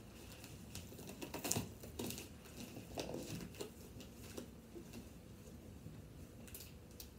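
Box and packing material being handled: irregular rustling, scraping and light knocks, the loudest about a second and a half in.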